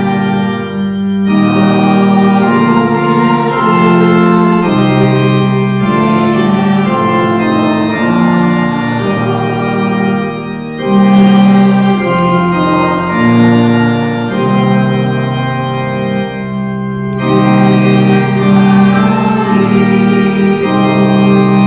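Church organ playing a hymn tune in held chords, with short breaks between phrases about a second in, about ten seconds in and about sixteen seconds in.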